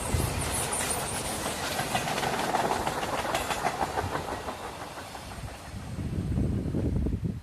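Freight train cars rolling past, their wheels clacking in quick runs over the rail joints, with a low rumble swelling near the end.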